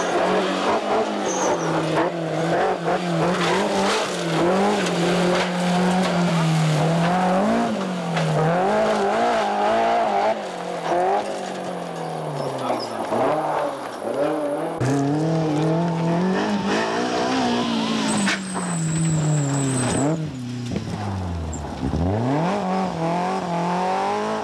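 BMW M3 rally car's four-cylinder engine revving hard, its pitch rising and falling again and again through gear changes and throttle lifts. Near the end the engine note drops low and climbs again as it accelerates away.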